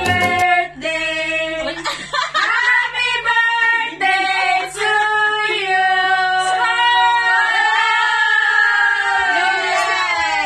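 A group of women singing together without accompaniment, in held notes, ending on one long held note near the end.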